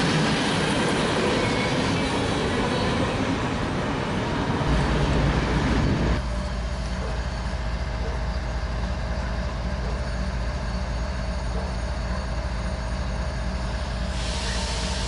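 Freight train rolling past: steel wheels on rail and the rattle of empty flatcars, a loud mixed rumble. About six seconds in it gives way abruptly to a steady low drone from approaching diesel freight locomotives running with their train.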